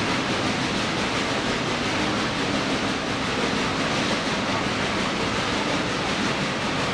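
Steady rushing rumble of a steam train ride heard from an open-sided passenger car: wheels running on the rails, with the geared steam locomotive working ahead.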